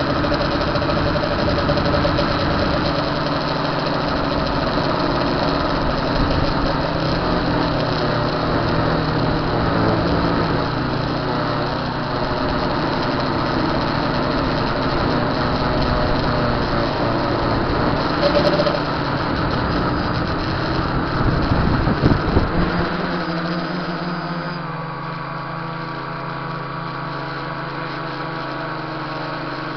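Tricopter's three electric motors and propellers whirring in flight, the pitch shifting with throttle. A few knocks come about 22 seconds in, after which the whirring turns quieter and steadier.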